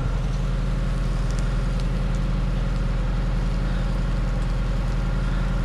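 Farm machine's engine running steadily, a low even hum with no change in speed.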